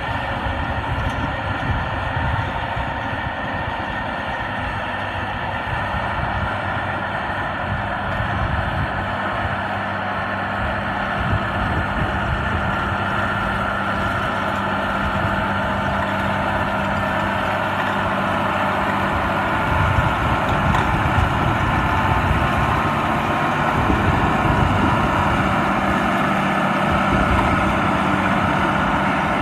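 White 6710 tractor's diesel engine running steadily under load, its level lifting slightly about two-thirds of the way through.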